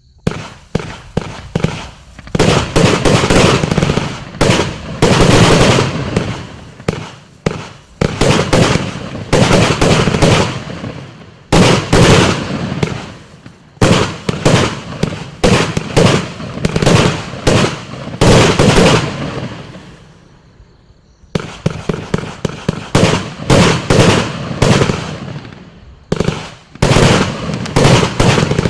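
F2 compound firework battery firing: rapid volleys of shots and loud bursts, with a short lull about twenty seconds in before the firing resumes.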